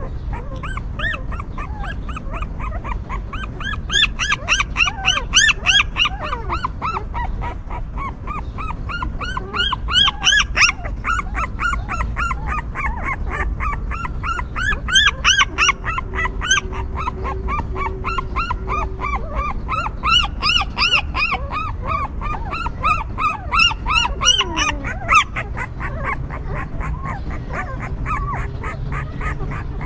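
A litter of young puppies whimpering and squealing together: a dense, unbroken stream of short, high cries that rise and fall, several overlapping at once, swelling louder now and then.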